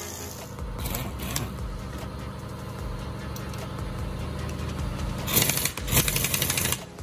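Impact wrench hammering in short runs near the end, tightening the nuts on the differential case and ring gear, over a steady low hum.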